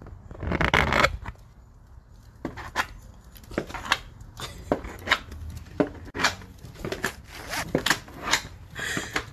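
A dog's plastic cone collar knocking and scraping against wooden steps as the dog tries to climb them and gets stuck: a string of short sharp clicks and knocks, roughly one every half second to a second, after a louder rustle near the start.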